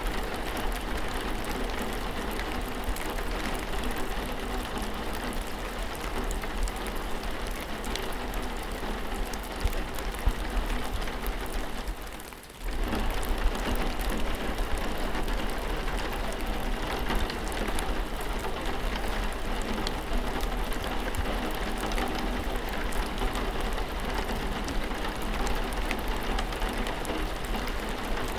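Steady rain falling, a dense patter of fine drops hitting a surface; the sound briefly drops away and returns about twelve seconds in.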